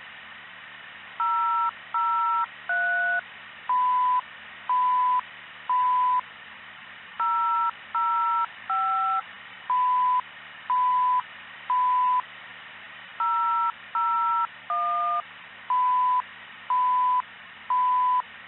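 Fire dispatch alerting tones heard through a radio scanner. There are three identical rounds, each of three short two-tone touch-tone beeps followed by three single steady beeps, over steady radio hiss. It is the station alert that comes before the dispatcher's voice call.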